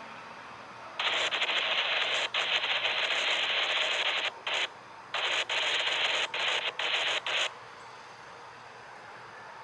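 Railroad radio scanner giving a burst of static for about six seconds, a keyed-up transmission with no voice on it. It starts about a second in and stops abruptly, and it breaks off briefly several times along the way.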